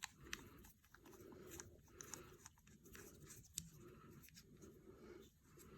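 Faint small clicks and rustling of camera gear being handled as a microphone is fitted onto a mount shoe.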